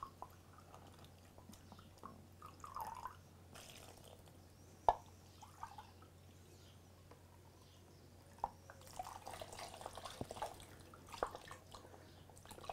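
Water trickling faintly from a glass jug into a mortar, with a wooden pestle tapping and stirring against it, one sharper knock about five seconds in.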